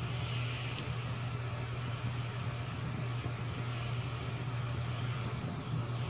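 Vornado 280B fan running steadily on medium speed: a constant motor hum, made louder by the plastic table it sits on, under the rush of air from the blades. Its bearings sound a tad dry.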